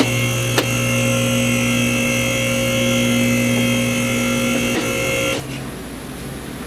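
Steady electric motor hum made of several steady tones, with a few sharp ticks, cutting off abruptly about five seconds in and leaving a quieter background noise.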